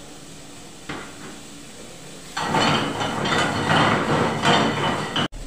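A metal ladle clanking and scraping against a wok in a quick, irregular rhythm as vegetables are stir-fried over a gas flame, with a loud sizzle underneath. It starts about two and a half seconds in, after a single light knock about a second in.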